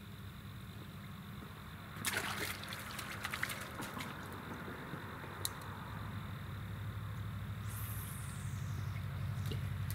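A small fish splashes into water about two seconds in. Near the end comes the swish of a spinning rod being cast, a falling whoosh as the line runs out. A steady low engine hum runs underneath and grows louder toward the end.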